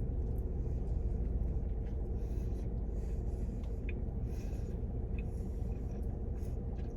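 Steady low rumble with a faint steady hum, the background of a car cabin, with a few faint soft sounds over it.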